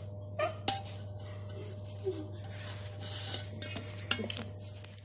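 Scattered light clinks and scrapes of metal pizza pans and a metal server on a table as pizza is handled, over a steady low hum.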